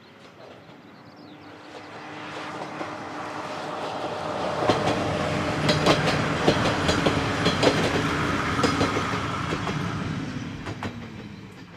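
Two-car train of old JNR Kiha 52 and Kiha 28 diesel railcars passing by: the diesel engine drone grows louder, then fades as the train moves off, its pitch dropping near the end. Through the middle the wheels clack sharply and repeatedly over the rail joints.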